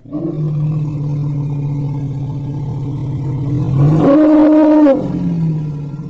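African elephant calling: one long, low call that starts suddenly, jumps up in pitch and loudness about four seconds in and holds there for about a second, then drops back and fades.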